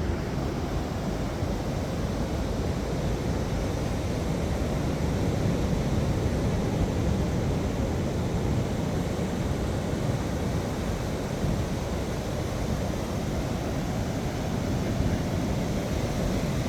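Steady rush of ocean surf on the beach, mixed with wind buffeting the microphone.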